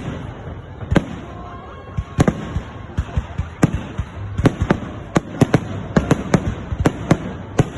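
Salute fireworks bursting overhead: a string of sharp bangs at uneven intervals, coming thick and fast about halfway through.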